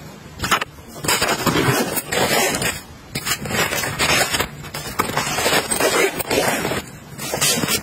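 Zippers on fabric travel pouches being pulled and the pouch fabric rustling as small items are slipped in. The result is a series of irregular short scratchy noises, each lasting about half a second to a second.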